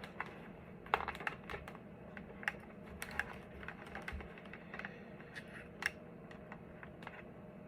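Irregular light clicks and taps of hands tucking intercom wiring and a cheek pad into a motorcycle helmet's plastic shell and padding.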